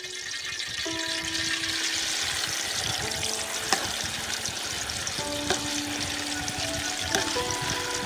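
Pig's tripe sizzling as it fries in hot oil, a steady dense hiss, with a few sharp knocks from stirring along the way. Background music plays over it.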